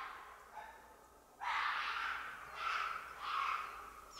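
An animal calling over and over: short harsh calls, one every second or so, with a quieter gap in the first second and a half.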